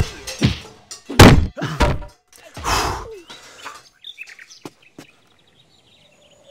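Heavy wooden door slammed shut and barred, cartoon-style: several loud thuds in the first three seconds, then a couple of light knocks.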